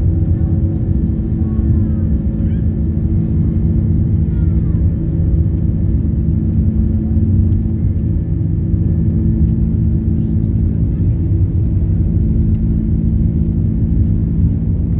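Steady airliner cabin noise in flight: a constant low rumble of engines and airflow with a steady hum, loud and unchanging.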